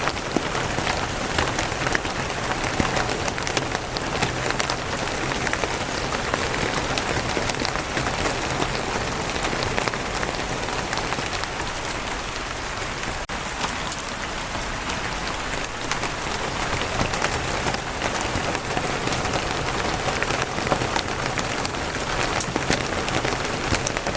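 Steady rain falling on a wooden roof, a dense patter of individual drop ticks over an even hiss.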